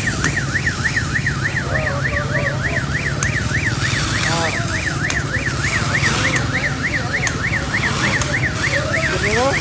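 Emergency vehicle siren in a fast yelp, sweeping up and down about three times a second without a break, over a steady low engine hum.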